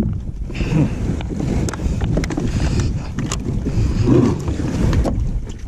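Wind buffeting the microphone over water washing against a kayak's hull, with scattered small clicks.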